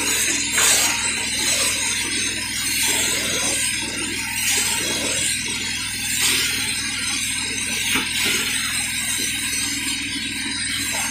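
Carpet-cleaning extraction wand being pushed and pulled over carpet, with the steady rush of vacuum suction drawing air and water up the hose, swelling every couple of seconds with each stroke.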